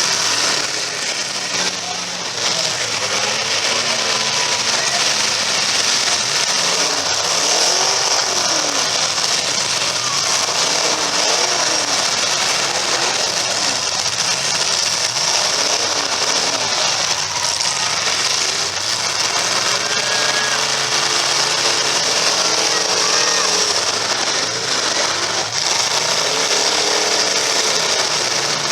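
Several demolition derby cars' engines running hard together, their pitch rising and falling repeatedly as they rev up and back off.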